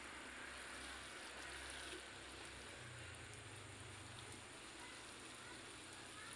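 Water sprinkling from a watering can's rose onto the mulched soil of potted bonsai trees: a faint, steady shower.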